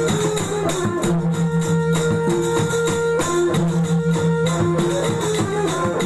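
Traditional Sasak cilokak music from a practice ensemble: hand-played gendang drum strokes and jingling percussion under a melody of held notes, one short phrase repeating about every two and a half seconds.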